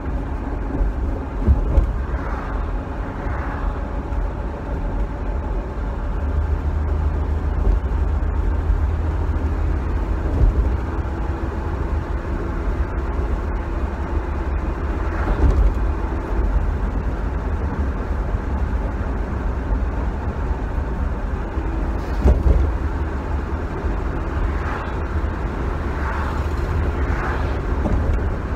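Cabin sound of a 1966 Dodge Dart GT under way: its 225 slant six engine running with a steady low rumble of road and wind noise, and a few brief knocks from the road.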